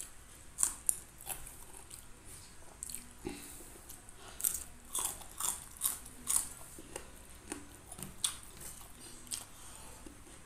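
Close-miked crisp crunching of a raw green bean being bitten and chewed: a run of sharp snaps, thickest in the middle.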